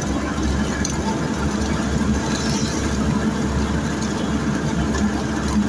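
Steady engine and road noise of a moving vehicle, heard from on board, with a low hum running throughout.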